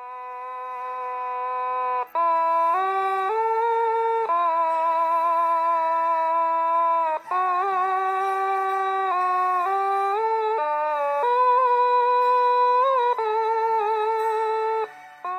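Slow music intro of sustained, held chords that change every second or two, swelling in from quiet at the start and fading at the end. There are no lyrics yet.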